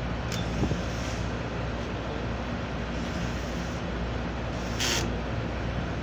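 Steady low mechanical hum with a constant rushing noise, like running rooftop machinery, broken twice by short hisses, once just after the start and again about five seconds in.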